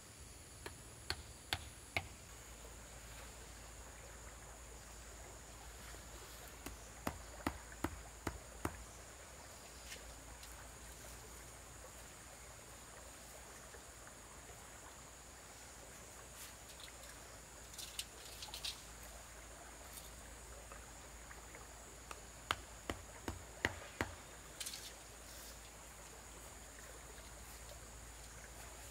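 Short runs of sharp knocks, four or five strikes in quick succession, three times: a tool striking wooden stakes as they are driven into the ground. A steady high insect drone sits underneath.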